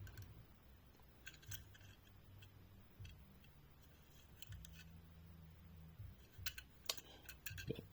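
Very faint clicks and handling noise from a diecast toy truck and its packaging, a few sharp clicks near the start and again near the end, over a low steady hum.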